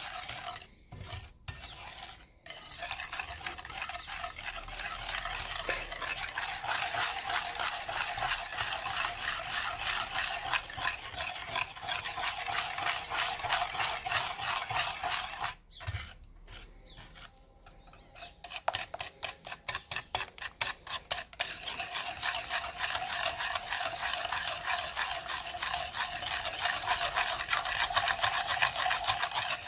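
Wire whisk beating a runny egg, sugar and oil mixture in a glazed ceramic bowl. The strokes are quick and steady, with short pauses near the start and about halfway through.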